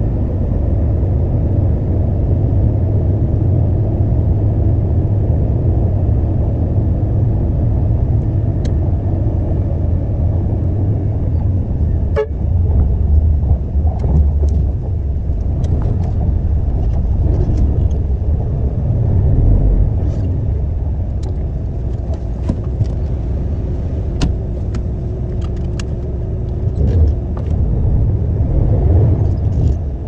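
Concrete mixer truck's diesel engine running with a steady low rumble, with scattered sharp clicks and rattles.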